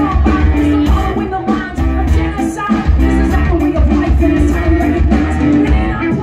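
Live brass band music in a brass-hop style mixing funk and New Orleans brass: saxophones, trumpets and trombone over a sousaphone bass line and drum kit, with a woman singing.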